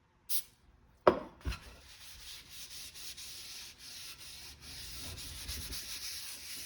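A paper towel rubbing cooking-spray oil over a cast iron lid: a steady scratchy rubbing. Before it come a brief hiss and two sharp knocks within the first second and a half.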